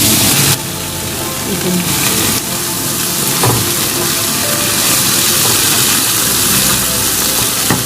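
Stir-fry sizzling in a hot pan as it is stirred: a steady hiss that drops a little in level about half a second in.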